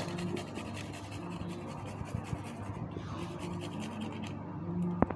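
A garlic clove being rubbed quickly back and forth across a flat stainless-steel hand grater, giving a fast, regular rasping scrape that stops a little after four seconds in. A single sharp tap follows near the end.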